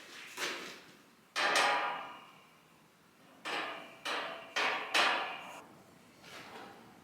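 Hammer blows on steel tubing, about six sharp, ringing strikes: one early, the loudest about a second and a half in, then four in quick succession from about three and a half seconds.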